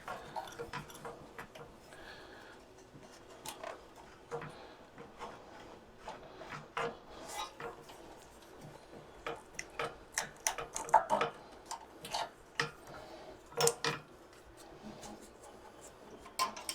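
Irregular clicks, clinks and light knocks of hand tools and small metal parts being handled while a small engine generator is taken apart, busiest in the middle of the stretch.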